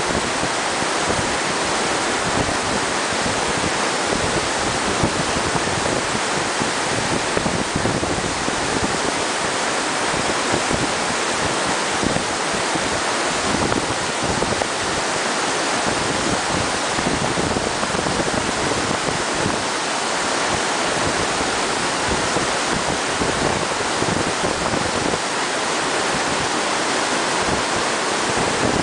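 Turbulent glacial meltwater river rushing over rocks and through rapids, a steady, unbroken rush of water.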